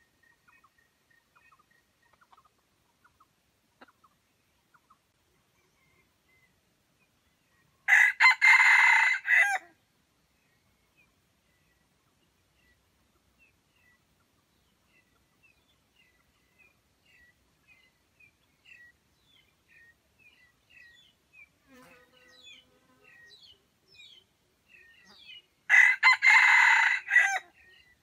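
A junglefowl rooster crowing twice, once about eight seconds in and again near the end, each crow lasting under two seconds. Faint short chirps of small birds come between the crows.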